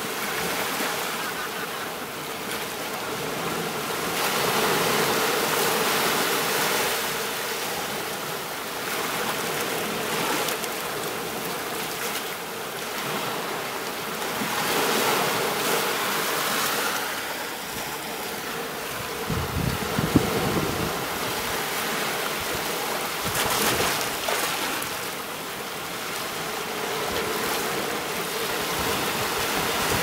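Small waves breaking and washing up on a sandy beach and around rocks, the wash swelling and fading every few seconds. About two-thirds of the way through, a brief low rumble with a single sharp tap.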